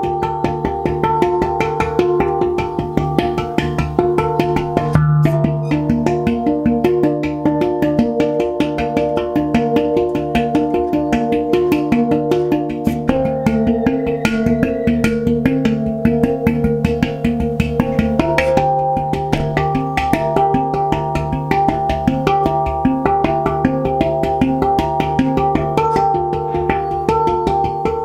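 Steel handpan played by hand: fast, continuous finger and palm strikes on the tone fields, the notes ringing on and overlapping above a steady low note.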